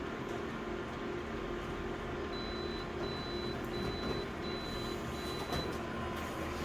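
Konica Minolta photocopier running a colour copy: a steady mechanical hum with five short, evenly spaced high beeps in the middle.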